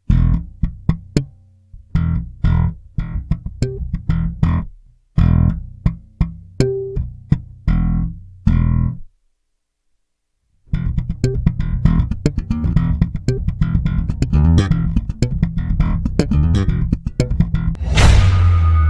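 Five-string electric bass played with percussive slap technique: sharp slapped and popped notes in short phrases, a pause of about a second and a half midway, then a denser, busier run. Near the end a sudden bright crash with a low held tone takes over.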